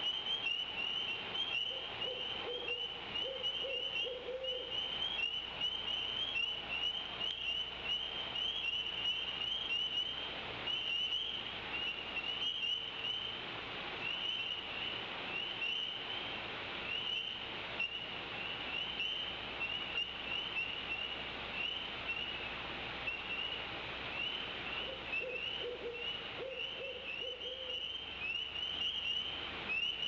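An owl hooting twice: a short phrase of low hoots about two seconds in and another near the end. Underneath, and louder, a steady chorus of rapid, high peeping calls.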